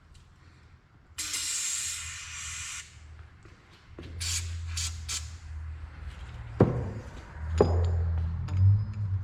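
A short spray-like hiss lasting under two seconds, then several sharp knocks and clicks of metal parts being handled while hydraulic hose fittings are fitted.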